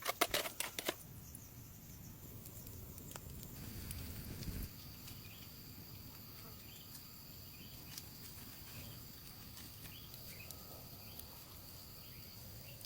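A quick run of sharp knocks in the first second, then a steady high-pitched insect trill that sets in about four seconds in and holds, with faint chirps beneath it.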